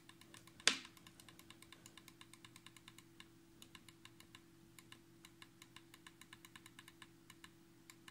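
Computer mouse clicking in quick succession to scroll down a list, about five clicks a second with a few short pauses and one louder click about a second in. A faint steady hum runs underneath.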